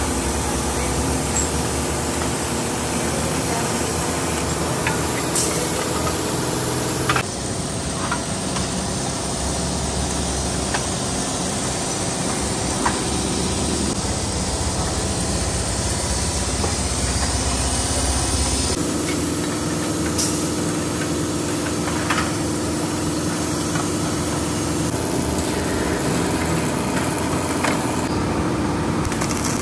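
Steady drone of workshop machinery running, with a few sharp metal clicks and knocks. The machine hum changes abruptly twice.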